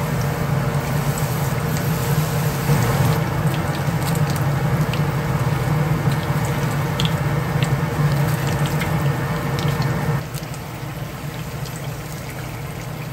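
Battered kabocha pumpkin slices deep-frying for tempura in a pot of hot oil: steady sizzling with scattered small pops of spattering oil. A low hum runs underneath and stops about ten seconds in, and the sizzle turns quieter there.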